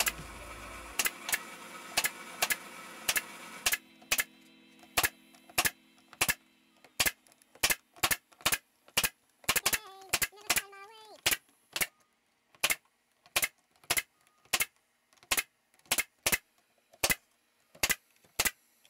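Brad nailer firing over and over, about two sharp shots a second, driving brads through cedar shingles into a wooden roof.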